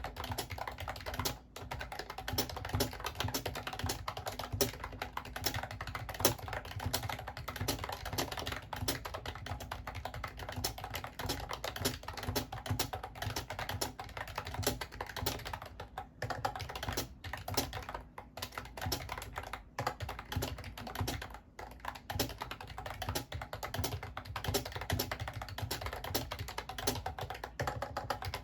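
Continuous fast typing on a Mofii Candy wireless keyboard, a steady stream of key clicks broken by a few brief pauses.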